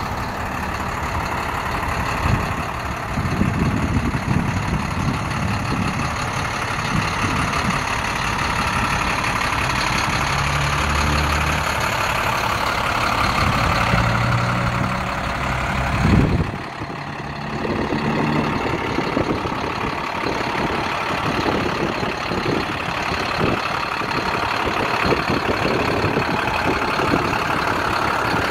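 Diesel engine of a medium-duty International 4300 box truck idling steadily under a wash of hissing noise, with a brief drop in level about seventeen seconds in.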